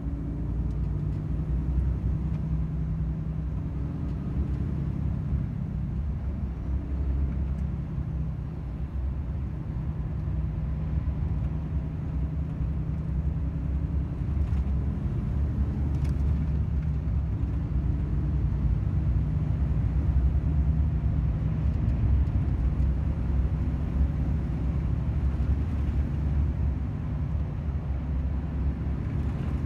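Volvo FH 500 truck's 13-litre inline-six diesel engine running steadily with a low drone.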